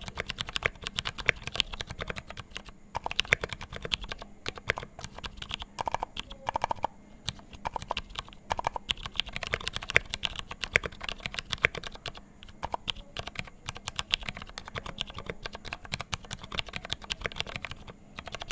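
Continuous fast typing on a custom 60% mechanical keyboard with lubed Ergo Clear 65g tactile switches with films and GMK Nautilus keycaps: a dense, uneven run of keystroke clicks with brief pauses.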